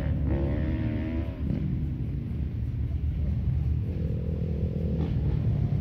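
Vehicle engine running at low, crawling speed off-road: a steady low rumble, with a steadier higher engine tone joining about four seconds in and dropping out just after five seconds.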